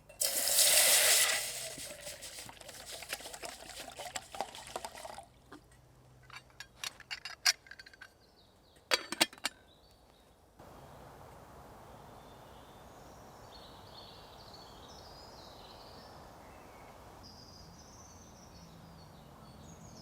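Water pouring with a loud rush at the start, then a run of sharp clinks and taps from metal kit. After a sudden change, steady woodland background with birds calling.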